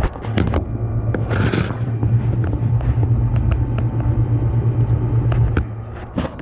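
Frigidaire window air conditioner running, its Rechi Precision compressor giving a steady low hum, with scattered clicks and knocks and a short hiss about a second and a half in. The hum drops away near the end.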